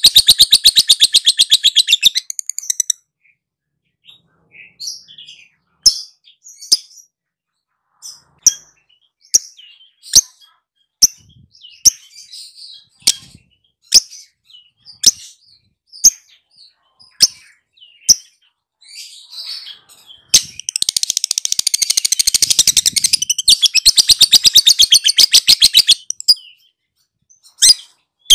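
Lovebird giving its ngekek: a long, fast chattering trill of sharp high notes that stops about three seconds in, then scattered single chirps, then a second long trill of about five seconds starting about twenty seconds in.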